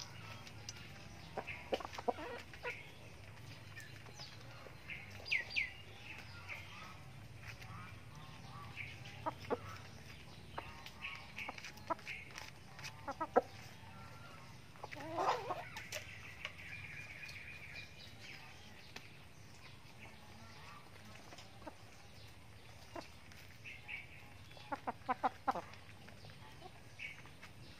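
Domestic chickens clucking at intervals while feeding, with short sharp taps of beaks pecking at grain on a plastic sack, including a quick run of taps near the end.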